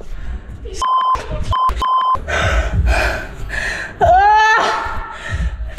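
Three short electronic beeps of one steady pitch, irregularly spaced, about a second in. About four seconds in comes a loud vocal cry whose pitch rises and then falls; it is the loudest sound.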